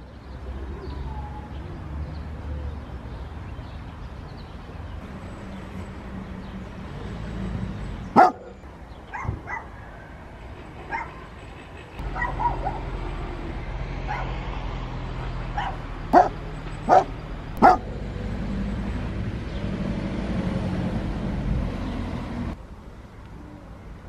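A dog barking: one loud bark about eight seconds in, a few fainter yelps after it, then three barks in quick succession about two-thirds of the way through, over a steady low background rumble.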